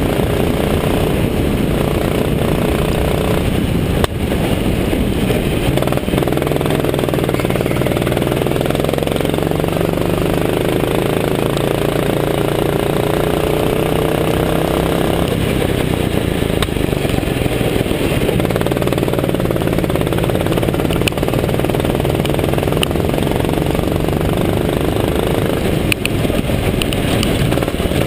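Go-kart engine heard from on board at racing speed, its pitch climbing steadily along the straights and dropping off twice as the kart slows for corners, under a steady rush of wind noise.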